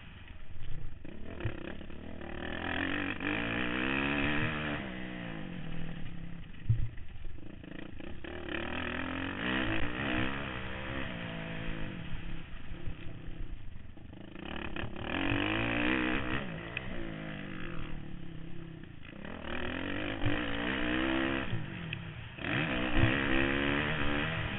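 Motocross bike engine at race pace, revving up and dropping off again and again as the rider accelerates out of turns and shifts gears, heard from the rider's helmet camera. A few sharp knocks stand out, about a second in, near seven seconds, and near the end.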